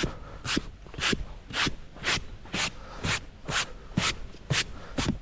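A gloved hand brushing frost off a Honda Super Cub's seat in quick, even strokes, about two a second.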